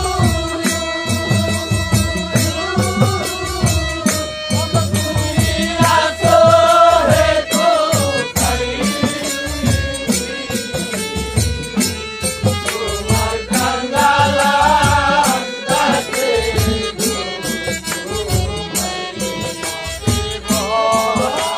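Live Bengali bicched folk song: a singer's voice over a harmonium, with percussion strokes keeping a steady beat.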